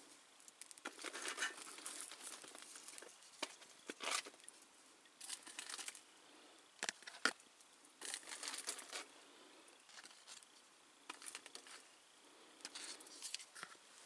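Intermittent crinkling and scraping with a few sharp clicks as a spatula works waffles off aluminium foil on a grill rack and onto a plate.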